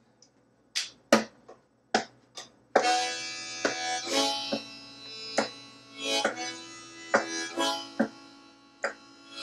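Acoustic guitar and a harmonica in a neck rack playing a song intro. A few separate guitar strums come first, then about three seconds in the harmonica enters with held chords over steady strumming.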